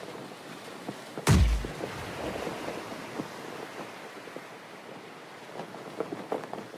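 A bomb explosion sound effect: one sudden blast with a deep boom about a second in, fading into a crackling, hissing rumble.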